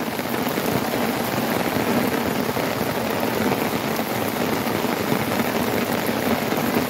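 Heavy rain falling steadily on floodwater and on an open boat, a dense even hiss.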